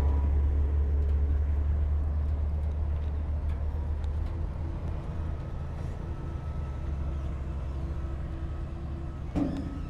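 Heavy diesel engine of earthmoving machinery running with a deep, steady rumble that slowly gets quieter. A single short knock comes about nine seconds in.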